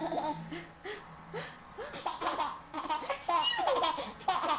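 A baby laughing in a quick run of short, high-pitched laughs.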